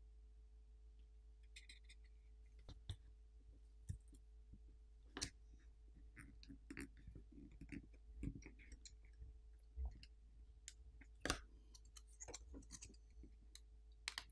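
Faint, scattered clicks, taps and scrapes of a plastic pry tool and fingertips working a smartphone battery loose from its alcohol-softened adhesive inside the phone's plastic midframe. The clicks come more often and sharper near the end.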